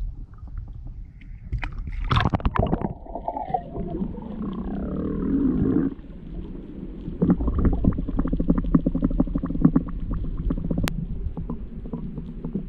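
Splashing as the camera goes under the sea surface about two seconds in. This gives way to muffled underwater sound: a steady low rumble with fast crackling clicks.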